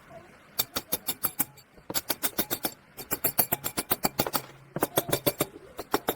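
Sharp taps or clicks in quick runs of about eight a second, five bursts with short pauses between, from hand-tool work on a motorbike engine.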